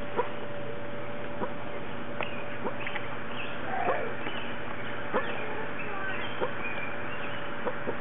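Puppies nursing from their mother, with brief squeaks and suckling noises about once a second over a steady background hiss.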